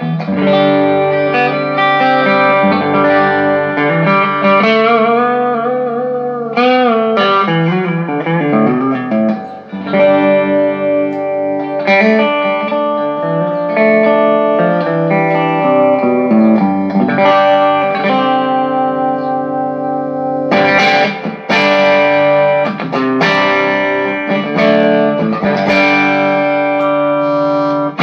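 Electric guitar played through a Vox AC15 C1 valve combo amplifier, being sound-tested after maintenance: sustained chords and single notes with slightly overdriven tone. Several bent notes come between about four and nine seconds in.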